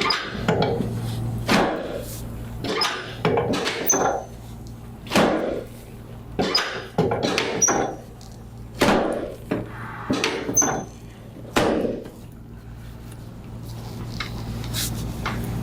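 Knocks and thuds of a chiropractic adjustment on a patient's back: about a dozen sharp impacts at irregular intervals, roughly one a second, stopping about three seconds before the end, over a steady low hum.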